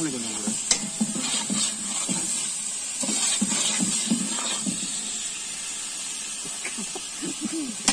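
Chopped onions and tomatoes sizzling in hot oil in a large aluminium pot, with a steady high hiss. A long-handled ladle stirs them, scraping and knocking against the pot now and then.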